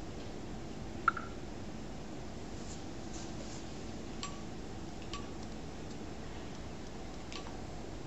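Steady low room hum with a sharp click and brief beep about a second in, then a few fainter clicks with short beeps, from the mobile phone as the wheelchair joystick controls it.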